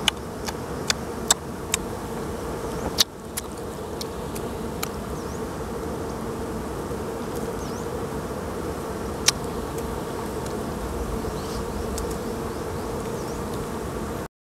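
Bees buzzing around cut brood comb, a steady hum, with a few sharp clicks mostly in the first three seconds; the sound cuts off suddenly near the end.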